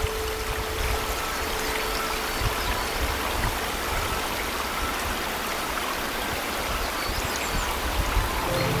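Mountain stream rushing steadily. Faint background music fades under it at the start and comes back near the end.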